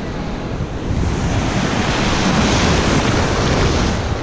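Small ocean surf waves breaking and foaming right around a camera held low at the waterline, with wind buffeting the microphone. The wash swells about a second in and stays loud until near the end.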